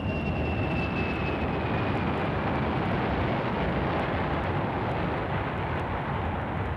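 Jet aircraft engines running: a steady rushing noise with a thin, high whine that slowly falls in pitch during the first couple of seconds.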